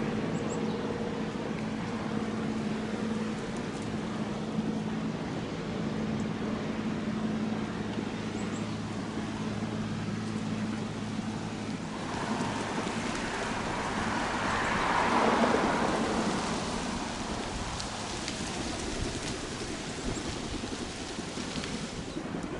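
An engine's steady low drone that stops about twelve seconds in, followed by a rush of noise that swells and fades over a few seconds.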